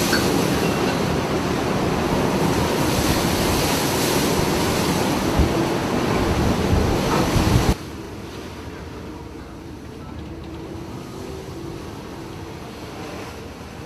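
Loud rushing, buffeting wind noise on the microphone, with the rumble of a heavy dump truck beneath it. About eight seconds in it drops abruptly to a much quieter steady hum.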